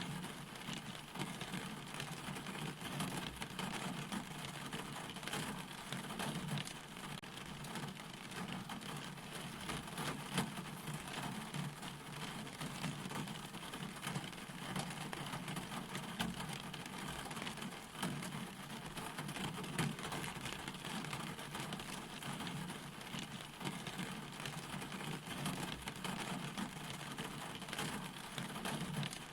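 Steady rainfall, drops pattering densely on a surface.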